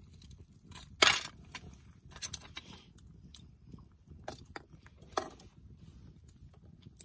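Scattered clicks and knocks from handling a grilled shellfish in its shell with metal tongs. The loudest is a sharp knock about a second in, with another just after five seconds.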